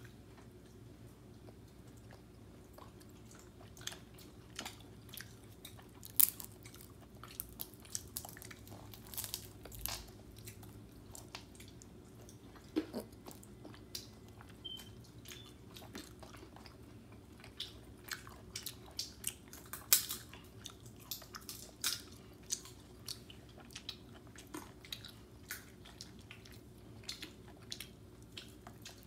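A child chewing and biting juicy orange segments: irregular wet clicking and smacking mouth sounds, thickest in the middle stretch.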